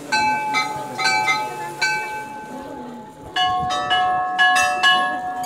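Temple bells struck by hand, each strike ringing on: about five strikes on one bell, then after a short pause a quicker run of strikes on two or more bells of different pitch.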